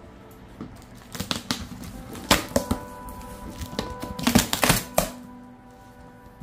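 Cardboard shipping box being worked open by hand: a run of sharp scrapes and rips from the packing tape and cardboard flaps, loudest in two clusters, about two seconds in and again near four and a half seconds. Soft background music plays underneath.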